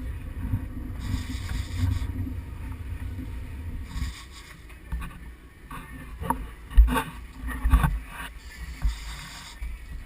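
Steady low rumble of a fishing boat at sea, easing off about four seconds in, followed by several short knocks and thumps.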